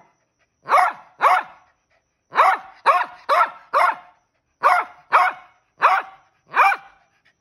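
Shih Tzu barking: about ten short barks in pairs and a run of four, each dropping in pitch.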